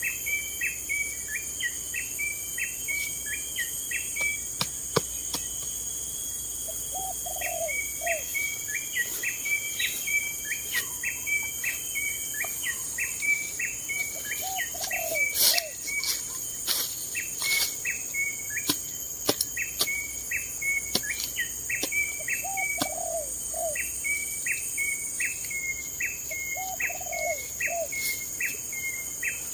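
A bird repeats a short high note about twice a second, pausing for a few seconds early on. A steady high insect drone runs underneath, and a lower call of two or three notes comes four times.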